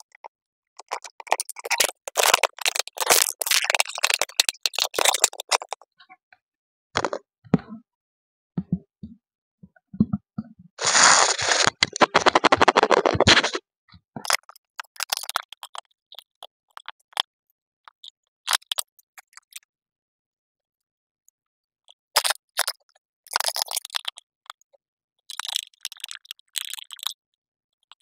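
Plastic blender housing parts being handled and screwed together with a screwdriver: scraping, clicking and rattling in separate bursts with silent gaps between, the loudest a dense scraping burst about eleven seconds in.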